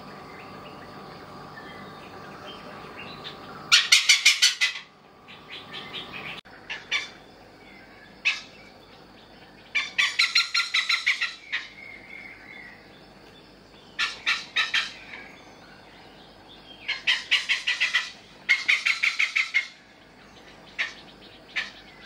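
A male oriental pied hornbill calling: loud, harsh cackling bursts of rapid notes, each burst about a second long and repeated about five times, with single notes scattered between.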